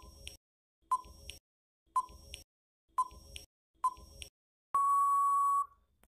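Quiz countdown timer sound effect: five short ticking beeps about a second apart, then one long steady beep lasting about a second that marks time up.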